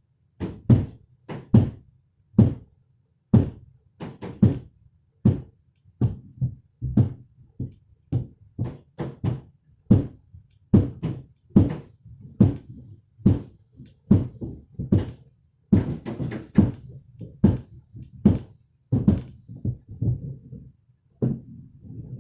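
Roofing work overhead, heard from inside: a long run of uneven knocks and thumps on the roof, about one to two a second.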